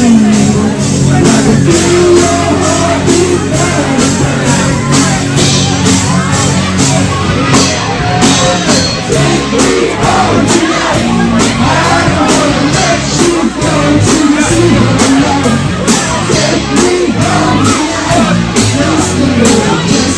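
Live rock cover band playing loud, with sung vocals over bass and guitar and a steady drum beat, amplified in a crowded bar with crowd shouts mixed in.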